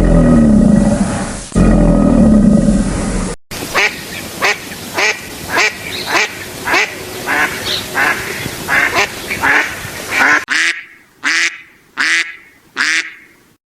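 A loud, deep roar for about the first three seconds, cut off abruptly. Then a duck quacking in a steady run of about two quacks a second, ending with four louder, more widely spaced quacks.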